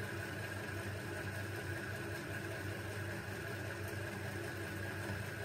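Steady low background hum with a faint, constant high tone above it, unchanging throughout; no handling clicks or knocks stand out.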